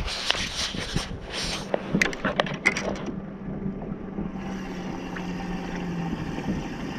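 Cloth rubbing against the camera's microphone with a run of sharp knocks and clicks from handling, loudest about two to three seconds in. A steady low hum from the boat runs underneath and stops near the end.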